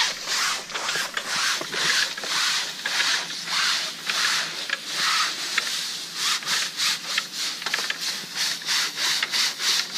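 Aztec screen washer scrubbing an insect window screen as it is pushed up and down through the washer head, in rhythmic rubbing strokes. The strokes quicken about six seconds in.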